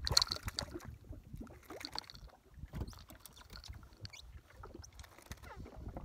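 Small waves lapping and sloshing against the hull of a drifting jet ski, with scattered light knocks and splashes, the loudest at the very start.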